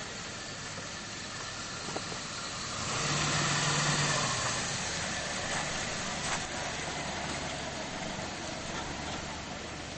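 Small pickup truck driving up a dirt road, its engine and tyres growing louder as it comes close about three seconds in, then easing off, over a steady hiss.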